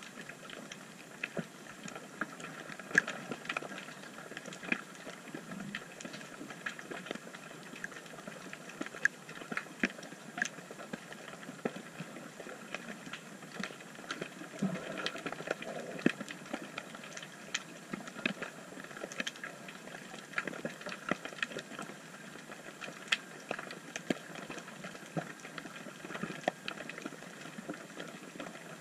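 Underwater ambience at a rocky reef: a steady hiss broken by many irregular sharp clicks and crackles, heard through the camera's housing.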